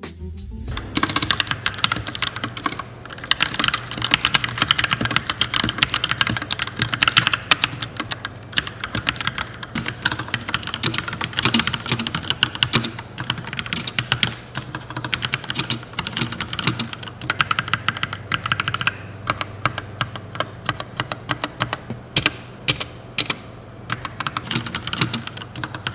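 Typing on a Vortexseries VX9 mechanical keyboard with Gateron Red linear switches: a continuous run of irregular keystroke clacks that starts about a second in.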